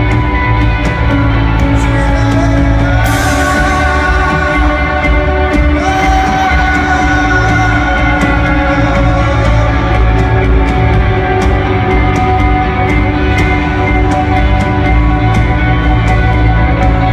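Rock band playing live, loud and bass-heavy, with steady drum hits and a singer holding long notes.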